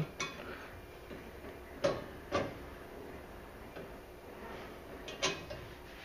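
A few sharp, small metallic clicks and clinks as screws are fitted by hand into the K40 laser cutter's sheet-metal exhaust duct: two about two seconds in and a couple more near the end.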